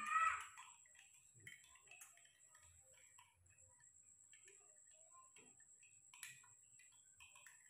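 A baby monkey gives one short, high-pitched squeal right at the start. Faint scattered clicks and ticks follow, with a faint steady high whine under them.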